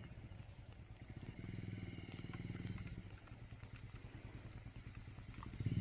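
A motorcycle engine, heard faintly, running at low revs with an even beat. It picks up a little for a second or two, about one and a half seconds in, then settles back.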